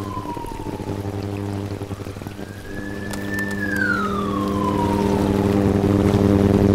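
A siren-like wailing tone that swells and falls in pitch, twice, over a steady low droning chord that grows louder toward the end.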